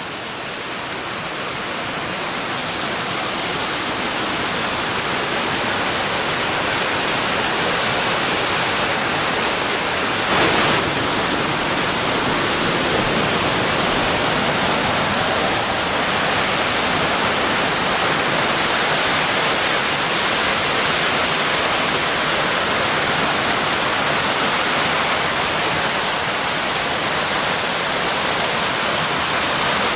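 Steady rushing of Raymondskill Falls, a tiered waterfall, heard from a viewing area above its main drop. The sound swells a little over the first few seconds, with a brief louder gust of noise about ten seconds in.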